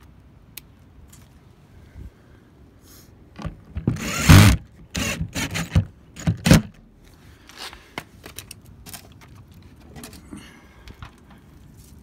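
Clatter and scraping of tools and small hardware being handled and moved, in a burst of about three seconds starting some three and a half seconds in, with a few light clicks scattered around it.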